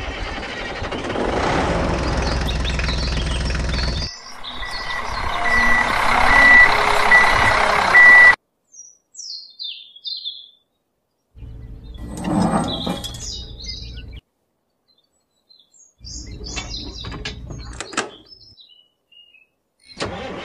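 A vehicle engine running, joined after about four seconds by a reversing beeper sounding a high beep roughly once every three-quarters of a second. It stops abruptly about eight seconds in; birds then chirp in the quiet gaps, broken by two shorter spells of engine noise.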